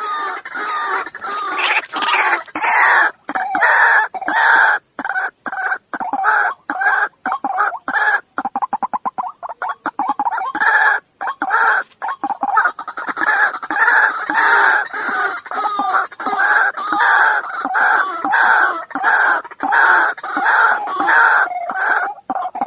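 White-breasted waterhen calling: loud, harsh notes repeated about twice a second, with runs of quicker, stuttering notes near the middle and at the end.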